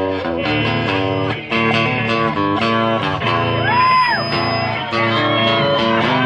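A live band playing an instrumental intro: an electric guitar lead with notes bent up and down in pitch, over chords and bass.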